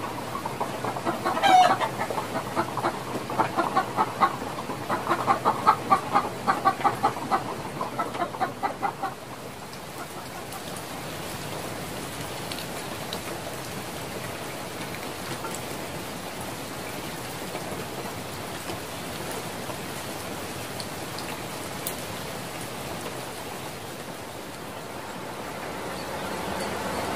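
A hen clucking in a rapid, loud run of calls for the first several seconds, then a steady hiss of rain.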